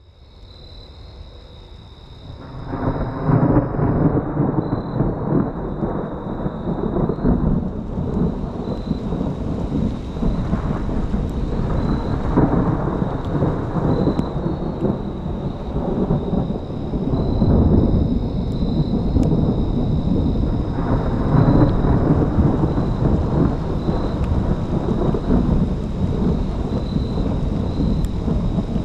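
Thunder rolling in long rumbling swells over falling rain, starting about two and a half seconds in after a quieter opening. A faint steady high tone runs underneath.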